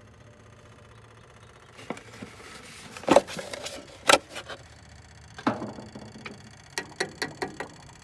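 Hands handling the white plastic fuel filter and fuel line of an electric fuel pump setup. About three seconds in come three loud knocks with short ringing, and near the end a quick run of about five light taps, over a faint steady hum.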